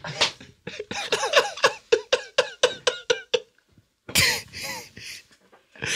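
A person laughing in a quick run of short bursts for about three seconds, then, after a short gap, a cough about four seconds in.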